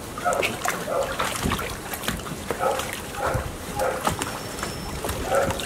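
Golden retriever puppies giving short play barks and yips about twice a second as they tussle, over splashing water in a plastic paddling pool.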